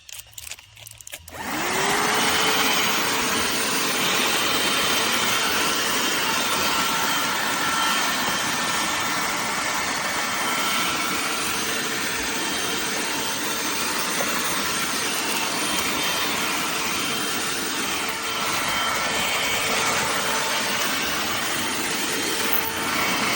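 BSRCO cordless handheld vacuum switched on about a second in, its motor spinning up and then running steadily: a rush of air with a steady tone over it.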